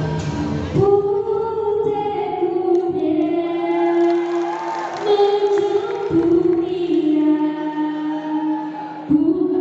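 School choir singing in long held notes, moving phrase by phrase; new phrases start about a second in, around the middle, and near the end.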